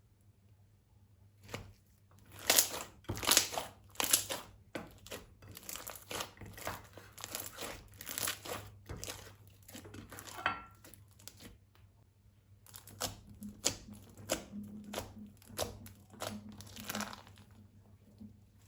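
Plastic piping bags crinkling and rustling as they are squeezed and handled, in irregular crackly bursts that start about a second and a half in, with a short pause about two-thirds of the way through.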